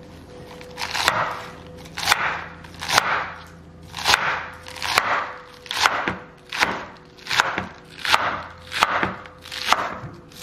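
Kitchen knife slicing through a head of lettuce onto a cutting board, about one crisp cut a second, cutting it into thin strands, over a faint steady hum.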